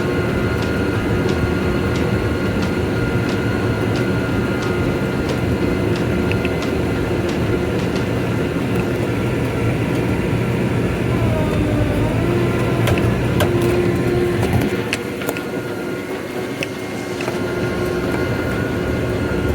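A motor running steadily with a few held tones, a faint regular ticking and a slight pitch wobble about two-thirds through.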